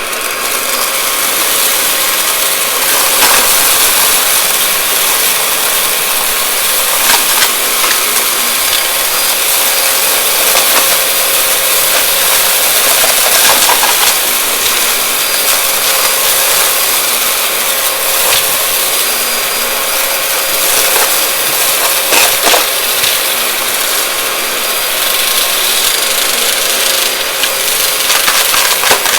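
Vacuum cleaner running with a steady motor whine while sucking up crunchy debris, which crackles and clicks at scattered moments.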